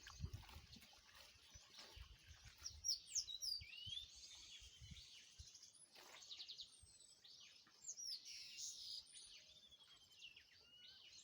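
Wild birds chirping, with many short whistled calls gliding up and down, busiest from about three seconds in, over a faint steady hiss. Soft low thumps come in the first couple of seconds.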